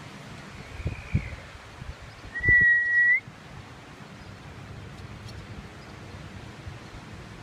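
A person whistling: a faint short whistled glide about a second in, then one loud, steady high note lasting nearly a second that turns up slightly at its end. Wind noise and a few low thumps lie underneath.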